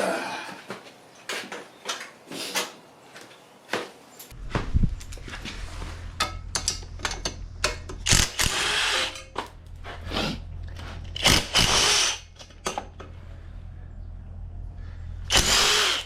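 Tools at work taking the bolts off a pit bike exhaust: sharp metal clicks and knocks, then several short whirring bursts of a small power tool. A steady low hum starts about four seconds in.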